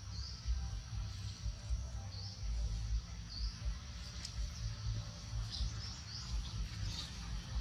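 Forest ambience: short high chirps recurring every second or so over a steady high-pitched hiss and a low rumble.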